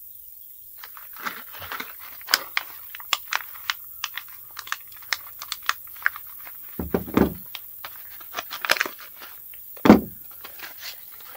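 Office-chair parts and hardware being handled: a run of small clicks, rattles and crackles of plastic and paper, with two heavier thunks at about seven and ten seconds as parts are set down or knocked together.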